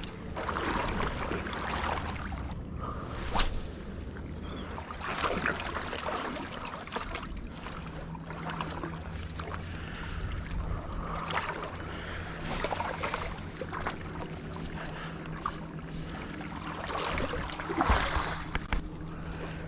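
Shallow harbour water sloshing and splashing in irregular swishes as someone wades through it, over a steady rush of wind on the microphone; a low steady hum comes in about eight seconds in.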